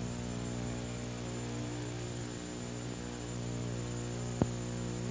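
Steady electrical mains hum with a thin high whine above it, and one sharp click about four and a half seconds in.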